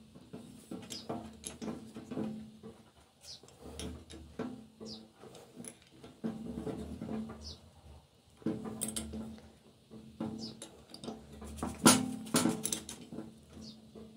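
Small metal parts and hand tools clinking and tapping as an oil pump is put back together: irregular clicks and knocks, with a sharp louder clack about twelve seconds in.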